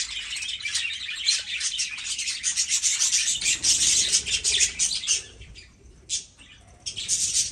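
A flock of budgerigars chattering and chirping in a dense, continuous high twitter that thins out a little after five seconds in and picks up again briefly near the end.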